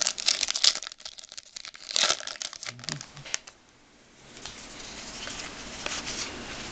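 Wrapper of a pack of SP Authentic hockey trading cards crinkling and tearing as it is pulled open: a dense run of crackles for the first two and a half seconds, then quieter handling of the cards.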